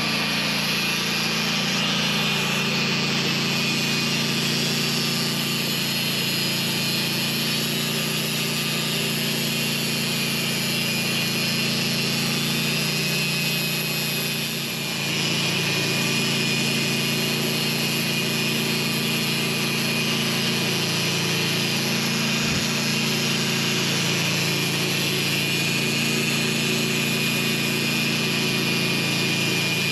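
Portable sawmill running steadily, its engine holding a constant note while the blade cuts through a pin oak log. The level dips briefly about halfway through.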